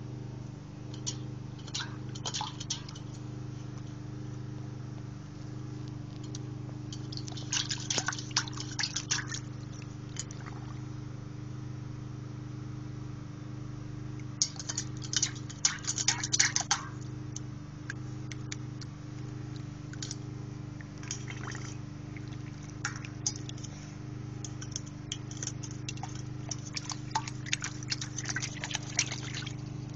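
A Lhasa-poo dog splashing water out of its bowl with its paws, in irregular bursts of several seconds with pauses between. A steady low hum runs underneath.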